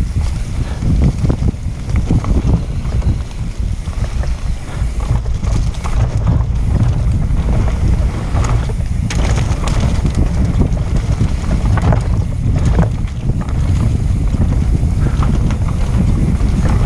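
Wind buffeting the microphone of a camera mounted on a mountain bike descending a dirt trail, over the steady rumble of the tyres and scattered rattles of the bike.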